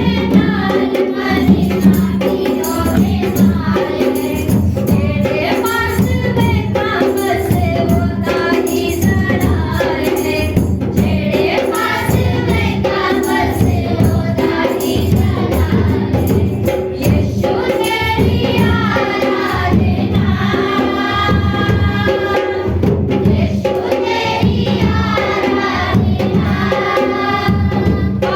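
A congregation singing a Hindi Christian worship song together, over a steady beat of hand percussion.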